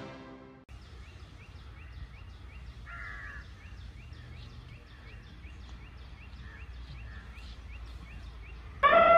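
A bird repeating a short, high, rising chirp about two to three times a second over a low rumble of outdoor noise, with a different, lower call once about three seconds in. Theme music fades out at the very start, and a loud held tone with several overtones cuts in just before the end.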